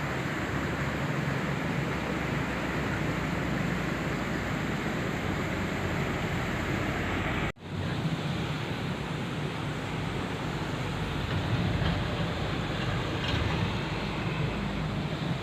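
Steady rushing of flowing river water, with the sound cutting out for an instant about halfway through.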